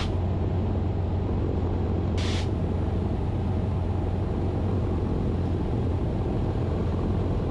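Cessna 150's four-cylinder Continental O-200 engine and propeller droning steadily in flight, heard inside the cabin. A short hiss comes about two seconds in.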